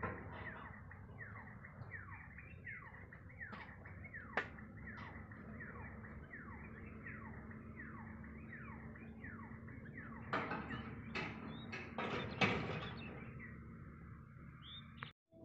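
A level-crossing boom barrier lowering. A steady motor hum runs under a rapidly repeating falling electronic warning tone, about two a second. A few sharp clanks come near the end as the boom comes down to rest.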